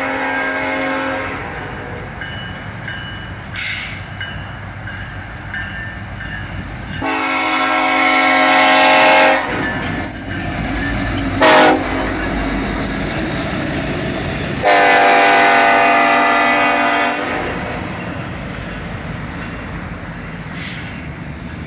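Norfolk Southern SD70ACe diesel locomotive sounding its air horn for a road crossing as it passes close by: the end of one long blast, then a long, a short and a long, the grade-crossing signal. The diesel engine and the wheels on the rails run beneath and fade as the train moves off.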